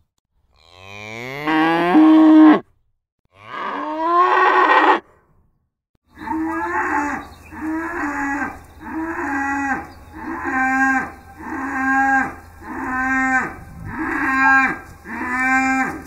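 Cow mooing: two long moos, the first rising in pitch, then a run of eight shorter, evenly spaced moos about one a second over a low steady hum.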